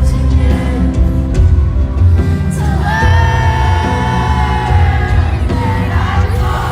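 Live performance of a slow pop ballad: a female singer's voice over a band with deep bass. About three seconds in she holds one long note for roughly three seconds.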